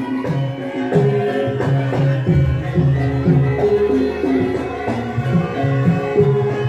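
Javanese gamelan music for a lengger dance: hand-drum strokes that drop in pitch in a steady rhythm over sustained ringing pitched notes.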